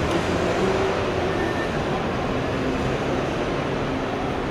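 Steady background din of a bus terminal hall, an even, continuous noise with most of its weight low down and no single sound standing out.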